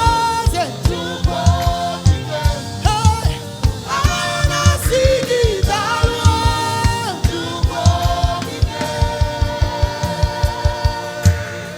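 Church choir singing a gospel song in harmony over a band with a steady drum beat, the voices holding a long note in the second half.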